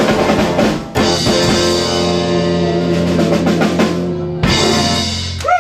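Live garage-swing band (upright bass, hollow-body electric guitar, saxophone and drum kit) ending a song. A sharp hit about a second in leads into a long sustained closing chord over the drums, and a final hit cuts off just before the end.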